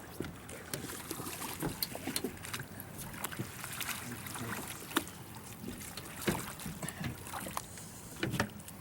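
Water sounds around a boat with scattered irregular knocks and clicks from handling on deck; no motor running.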